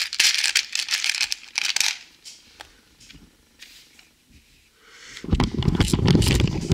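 Loose LEGO bricks clicking and rattling against each other as a hand rummages through a plastic tray of pieces, then a few soft ticks. About five seconds in, a loud low rumble of handling noise as the camera is moved.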